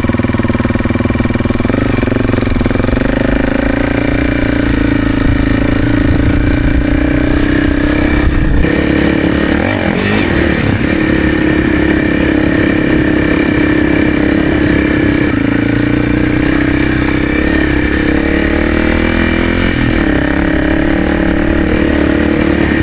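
Honda CRF300 single-cylinder engine running under way, a steady loud engine note that dips briefly in pitch twice.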